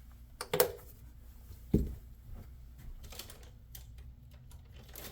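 Alienware laptop being handled and its lid opened: two loud knocks, the second a heavy thud, then scattered light plastic clicks and taps.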